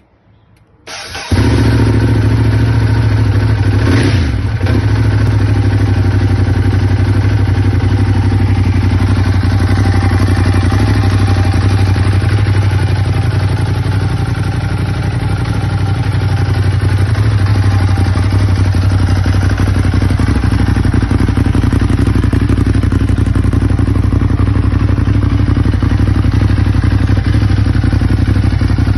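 Ducati Monster 821's 821 cc L-twin engine starting cold about a second in, then idling steadily, its idle rising slightly and settling back about midway. A single sharp clack about four seconds in.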